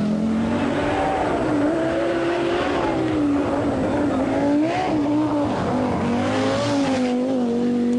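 Audi Quattro Group B rally car's turbocharged inline five-cylinder engine running hard, its revs rising and falling repeatedly as the driver works the throttle and gears.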